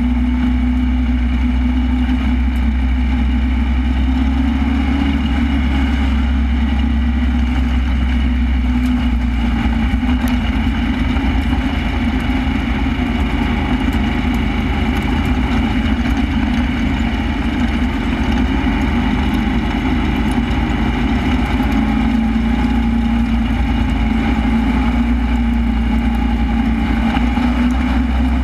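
Super stock race car's engine heard from inside the car, running steadily at an even, moderate speed with no hard revving.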